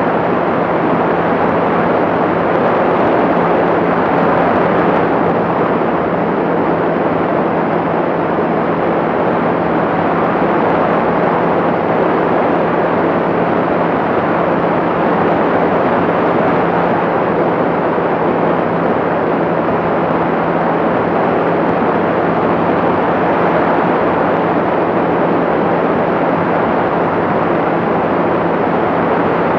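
Light aircraft in level cruise: a steady engine and propeller drone with a constant low hum, under heavy rushing airflow.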